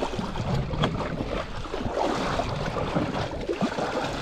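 Water splashing and sloshing at the surface as a hooked stingray flaps beside the boat: an uneven wash of splashing with short spikes through it.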